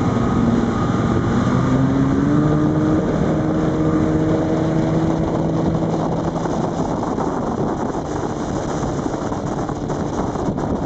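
Racing powerboat running at speed: a steady engine drone that rises slightly in pitch about two seconds in and fades after about seven seconds, over constant rushing water spray and wind on the microphone.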